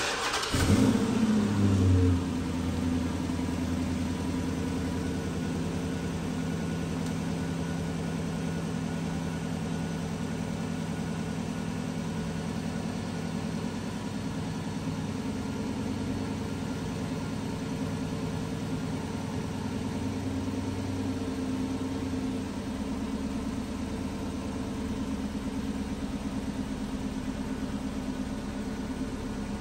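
A 2008 Chrysler 300C's 5.7-litre Hemi V8 cold-starting: a short crank, then the engine catches and flares for about two seconds before settling into a steady fast idle. The idle drops slightly lower about three-quarters of the way through.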